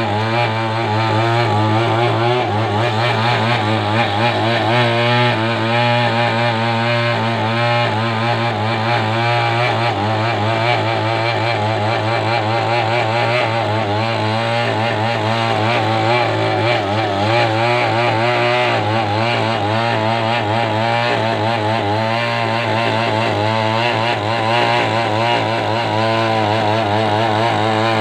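Two-stroke chainsaw running continuously while cutting lengthwise through a coconut palm trunk to square it into a beam, its engine pitch wavering slightly under load.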